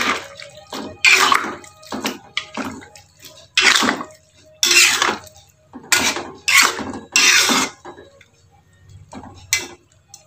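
Metal spatula scraping and clacking against a metal wok while stirring tempeh and melinjo skins in broth, in about a dozen short strokes with a brief lull near the end.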